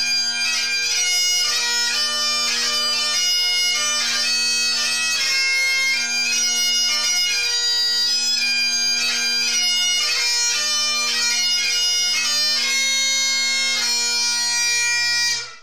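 Scottish bagpipe playing a tune: the chanter melody with quick ornamented notes over the steady drones, stopping abruptly near the end.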